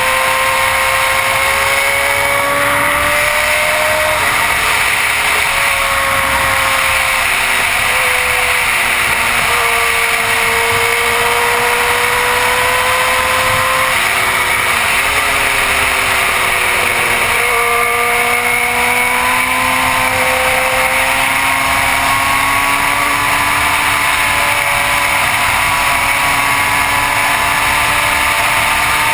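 Suzuki GSX-R1000 sportbike's inline-four engine running at road speed, its pitch climbing slowly and then dropping a few times as the throttle comes off between bends, over heavy wind rush on a helmet-mounted camera.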